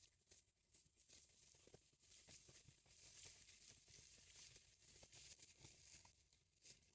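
Near silence: faint scattered crackles of dry leaf litter over a faint high hiss.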